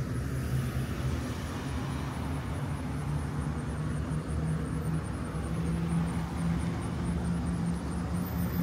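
A steady low machine hum and rumble, with a held low tone that steps up slightly in pitch about five seconds in.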